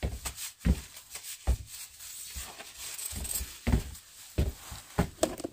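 Handling and movement noise close to the microphone: irregular rustles, light knocks and dull low thumps, about a dozen, as a person in a nylon puffer jacket moves about and handles things.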